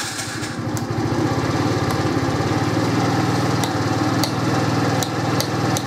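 The Viper Storm scooter's 139QMB four-stroke single-cylinder engine idling steadily just after starting, with several sharp clicks as the handlebar light switch is worked.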